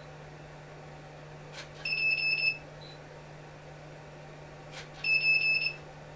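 Two short bursts of rapid, high electronic beeps, about three seconds apart, each with a faint click just before it, over a steady low hum.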